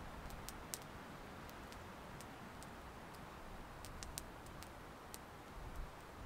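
Faint campfire crackling: irregular sharp pops and ticks, several a second, over a low steady hiss.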